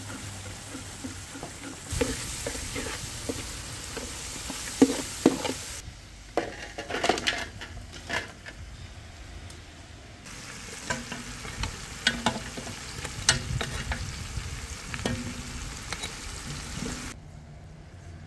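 Food sizzling in a large metal pot as it is stirred with a metal ladle, with repeated sharp clinks of the ladle against the pot.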